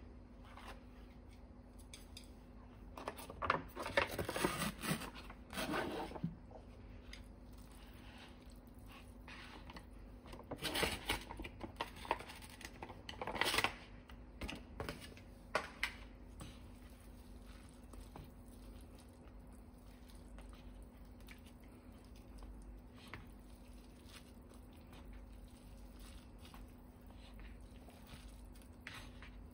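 Crinkling and tearing packaging of an instant noodle cup: the lid peeled off and a sauce sachet torn open and squeezed into the bowl, in two bursts of rustling. Afterwards only faint soft scraping of wooden chopsticks stirring the noodles, over a steady low hum.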